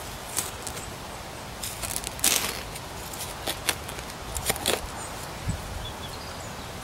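Metal hand trowel digging into stony, rubble-filled soil: a series of short scrapes and knocks, the loudest a little over two seconds in.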